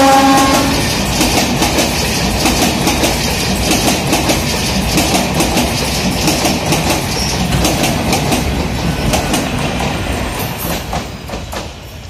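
MEMU electric train's horn ending under a second in, then its coaches rolling past with a steady clickety-clack of wheels over rail joints, fading away over the last couple of seconds.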